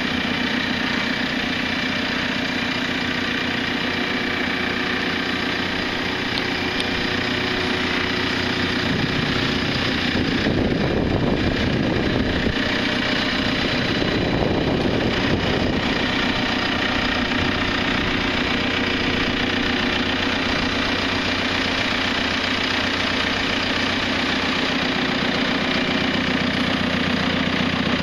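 JCB 527-58 telehandler's four-cylinder diesel engine idling steadily. It grows rougher and a little louder for a few seconds about ten seconds in.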